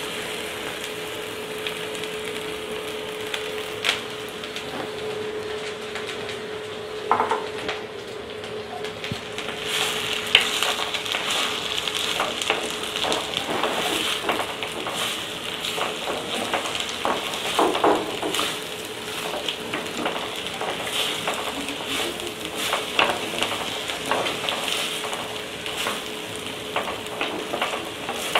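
Sliced okra sizzling in hot wood-pressed sesame oil with cumin in a clay pot (mann chatti), a steady frying hiss. From about ten seconds in, a spatula scrapes and knocks against the clay as the okra is stirred. A steady hum sits underneath for roughly the first half.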